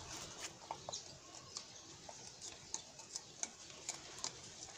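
Light, irregular ticks and clicks as a coconut-shell pot is twisted by hand onto a screw in the end of a PVC pipe, the shell rubbing and catching against the pipe.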